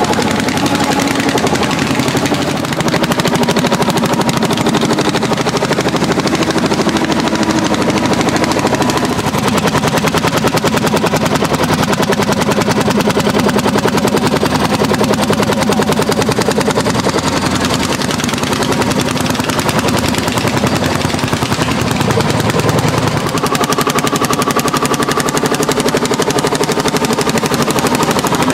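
Landini hot-bulb (testa calda) single-cylinder two-stroke tractor engines working hard under ploughing load, with a fast, even, staccato exhaust beat.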